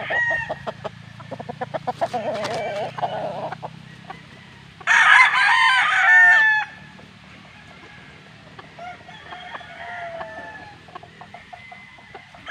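Rooster crowing once, a loud call of about two seconds starting about five seconds in, with hens clucking in quick repeated notes before it and fainter chicken calls later.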